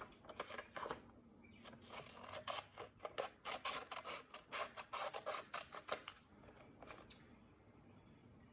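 Scissors cutting paper: a faint run of quick, short snips that tails off near the end.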